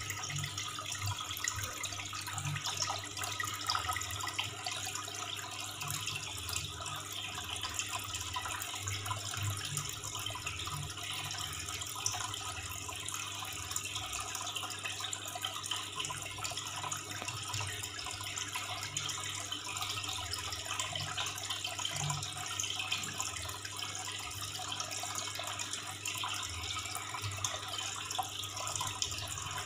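Aquarium water running and splashing steadily, with a steady low hum underneath.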